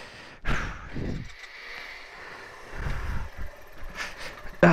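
A person's breathing and sighs, heard up close, with a short voiced grunt near the end.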